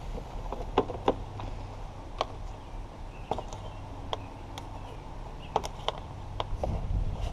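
Scattered sharp clicks and taps of a small metal pick tool prying at plastic retaining clips on the plastic engine-bay cover, over a low steady hum.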